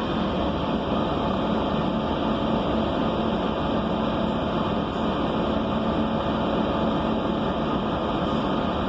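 Steady drone of a city bus running, heard from inside the passenger cabin: engine and road noise with a low hum underneath.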